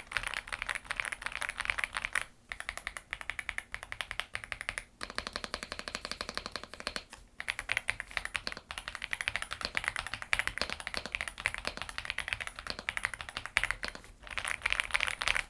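Fast, continuous typing on a hot-swappable mechanical keyboard: a dense run of key clicks, broken by a few brief pauses.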